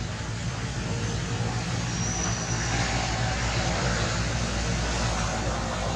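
Steady rumble of a motor vehicle engine with road hiss, swelling slightly around the middle as if traffic were passing.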